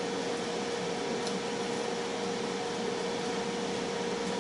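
Tristar FR-6989 air fryer running, its fan giving a steady whoosh with a constant hum.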